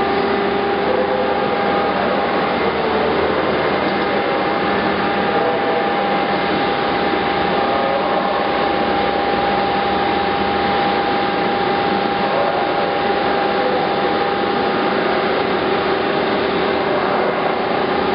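SMTW H-163 cylindrical grinder running under power, giving a steady mechanical noise with a steady high whine.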